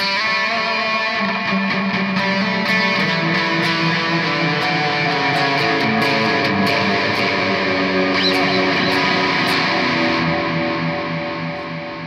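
Electric guitar played through a high-gain amp channel, gain turned all the way up, and a DIY PT2399 dual delay pedal: distorted notes and chords with echoing repeats. Near the end the playing stops and the repeats fade away. Noise from the pedal is clearly heard under the high gain.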